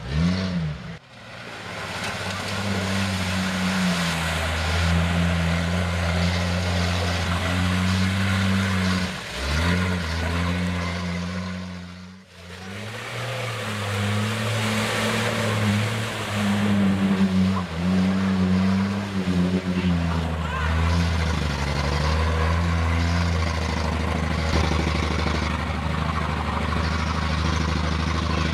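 Jeep Cherokee engines revving hard and held at high revs while driving through deep mud, with spinning tyres throwing mud and water. The engine pitch dips and climbs again a few times, and the sound cuts off briefly twice.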